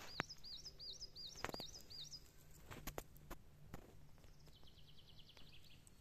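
Faint songbird song: a quick run of about eight rising-and-falling high notes in the first two seconds, then a fast trill around five seconds in, with a few light clicks between.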